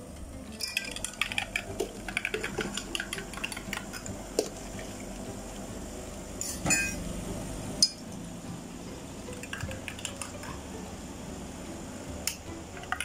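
Metal utensils and cups clinking and clattering while drinks are mixed, with liquid being poured. There is a dense run of clinks early, a brief louder rush of noise about seven seconds in, a sharp knock just after, and scattered clinks toward the end.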